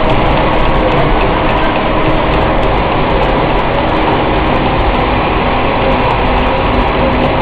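Twin-screw snack extrusion line running: a loud, steady mechanical din with faint steady humming tones underneath.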